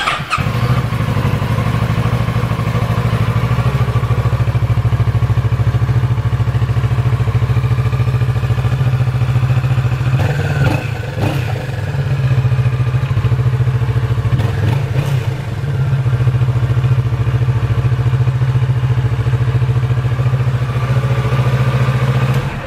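Kawasaki Ninja 650's parallel-twin engine starting from cold on its stock exhaust, then idling steadily.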